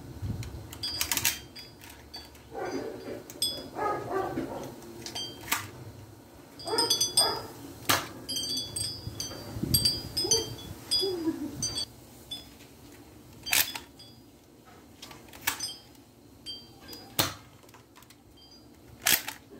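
A Nerf Sharpfire dart blaster being primed and fired again and again: a run of sharp plastic clicks and snaps, evenly spaced every couple of seconds in the second half.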